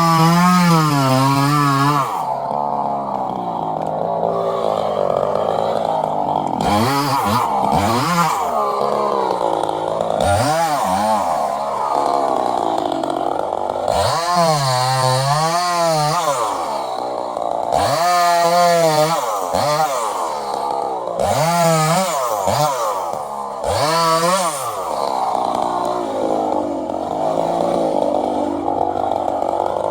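Petrol chainsaw running at high revs while cutting wood, its engine pitch swooping up and down again and again, with steadier stretches of high running in between.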